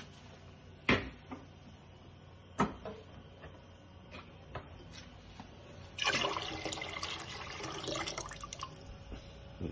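Two sharp knocks, then about six seconds in, chicken stock poured from a can into a pot of hot water, splashing for about three seconds.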